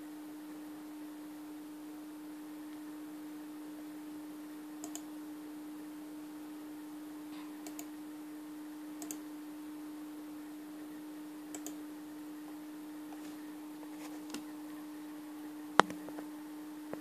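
Light clicks at a computer every few seconds, several in quick pairs, over a steady low hum. One sharp, much louder click comes a little before the end.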